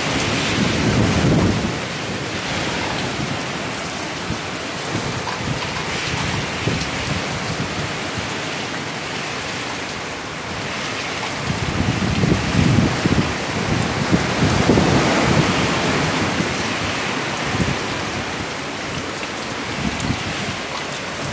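Heavy hurricane rain pouring steadily, with strong gusts of wind surging in as a low rush in the first couple of seconds and again, loudest, from about halfway through.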